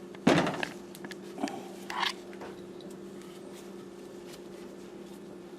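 Handling noise from working the rope wrap on the adze handle: a loud brief rustle or knock about a third of a second in, then two smaller sounds around one and a half and two seconds, over a steady low hum.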